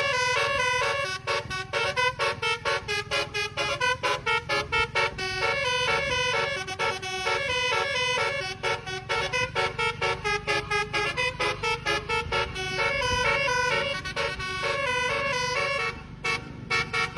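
Bus telolet horn, a Basuri-type multi-tone musical horn, playing a quick tune of stepping notes with runs of short staccato toots. A steady low rumble from the bus runs underneath.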